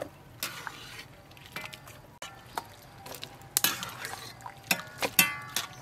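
A metal ladle stirring and scooping peppers in water in a metal wok, with several sharp metallic clinks that ring briefly as it knocks the wok.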